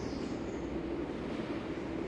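Otis elevator car in motion: a steady hum over a low rumble as the car travels.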